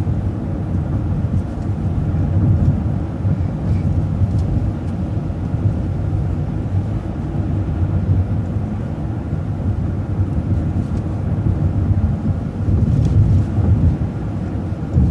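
City transit bus under way, heard on board: a steady low rumble of engine and road noise that swells briefly a couple of times.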